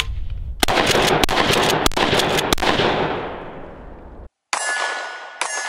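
A rapid string of about eight gunshots over a deep rumble, fading and then cutting off suddenly. A sharp metallic clang follows and rings as it fades.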